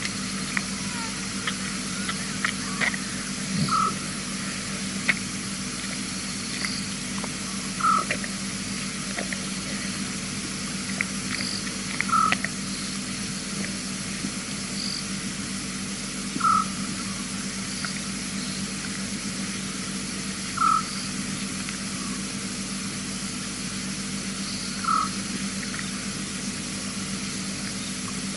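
Nighttime outdoor sound with a short animal call repeating very regularly, about once every four seconds, and a fainter, higher call between them. Under it run a steady hiss and a low hum, with a few faint clicks in the first few seconds.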